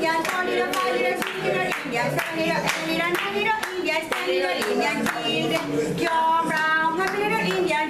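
Women singing a song together and clapping their hands in time.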